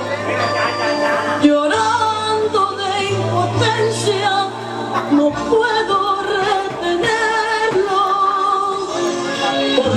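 A recorded song playing, with a singer's voice over a low bass line that drops out about halfway through.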